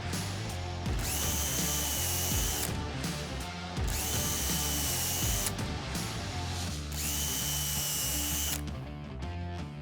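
Cordless drill running a self-centring hinge pilot bit, drilling pilot holes for hinge screws in three short bursts of about a second and a half each, the motor whine rising as each burst starts. Background music plays underneath.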